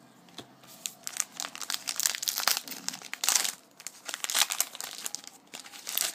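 A trading card pack wrapper being torn open and crinkled by hand: a run of dense crackling rustles, loudest about two and a half and three and a half seconds in.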